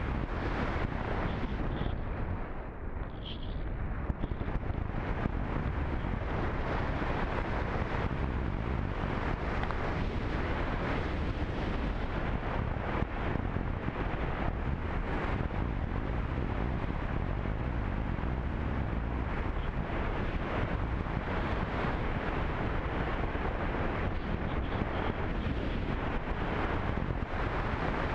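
Wind rushing over the onboard camera of a slope-soaring radio-controlled glider in flight: a steady rush of airflow noise that eases briefly about three seconds in.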